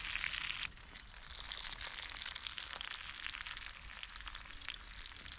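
Steady sizzling and crackling with many fine ticks, from campfire cooking. The sound thins suddenly about two-thirds of a second in.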